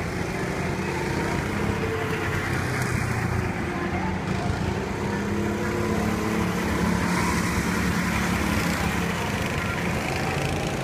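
Go-kart engines running as several karts lap the circuit, their engine notes rising and falling with throttle.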